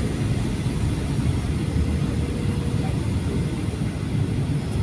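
Steady low rumble of Boeing 737-800 cabin noise, engines and airflow heard from a window seat during the low-altitude approach.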